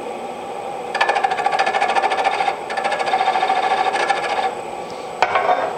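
Wood lathe running with a steady high whine, and a turning tool cutting the spinning wooden tenon down to size: a rapid, fine scraping chatter from about a second in, dropping briefly once and easing off near the end. A sharp click just before the end.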